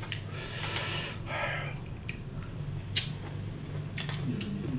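A person eating a salted-crab salad makes loud slurping and sucking mouth noises, with a long noisy intake about a second long near the start. A few sharp clicks follow, about three and four seconds in.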